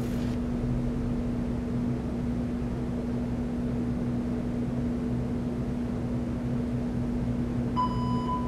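Steady low electrical hum of the room, with a workout interval timer sounding one long, steady electronic beep near the end.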